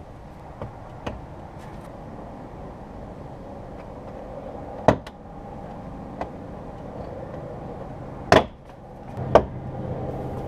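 Plastic push clips of a 2006 Toyota RAV4's back-door trim panel popping loose as the panel is pried off with a trim tool: a handful of sharp snaps, the loudest about five and eight seconds in.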